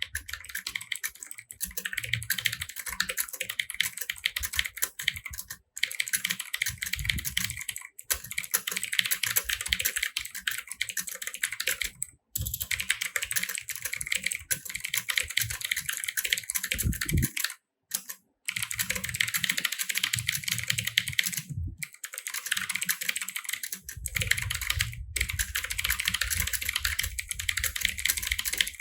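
Fast, continuous typing on a computer keyboard during a speed-typing test: a dense run of key clicks, broken now and then by short gaps.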